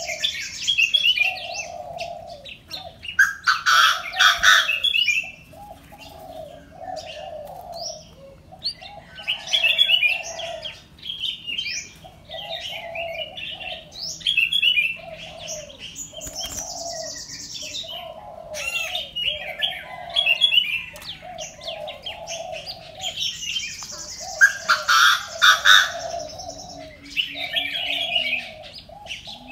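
Caged songbirds calling: a steady series of low whistled notes about once a second, with higher chirps and twittering over them. The loudest bursts come about four seconds in and again near 25 seconds.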